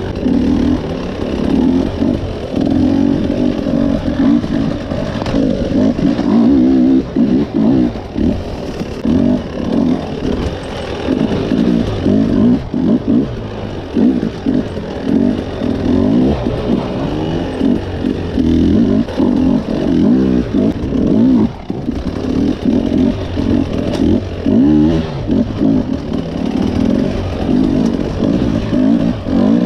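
Off-road dirt bike engine revving hard in repeated throttle bursts, its pitch rising and falling again and again, as on a technical hard enduro section.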